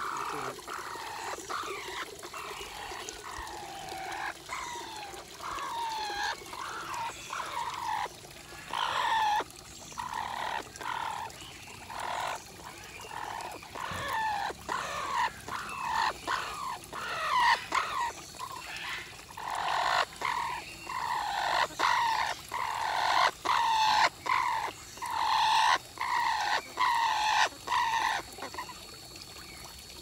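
Orange-winged amazon parrot giving a long series of short calls that fall in pitch, one or two a second, louder in the second half.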